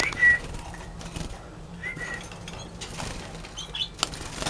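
Canaries giving short whistled call notes, a few single notes spread a second or two apart, the loudest right at the start, with a few sharp clicks from a small wire cage being handled.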